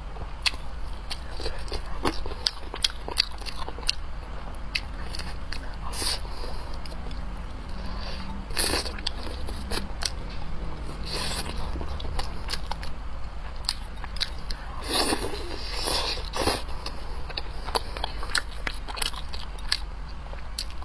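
Close-up eating sounds: a person biting and chewing food, with many small wet clicks and crackles and a few longer, louder mouth sounds around the middle and later on.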